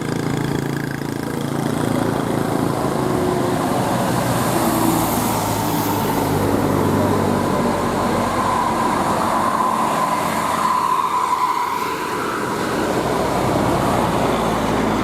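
Passing bus engines droning over road noise, with a bus air horn holding a steady high note for about three seconds past the middle.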